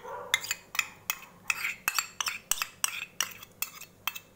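Metal spoon scraping and tapping against stainless steel bowls, scooping ginger-garlic paste from a small bowl into the mixing bowl: a run of about a dozen quick metallic clinks.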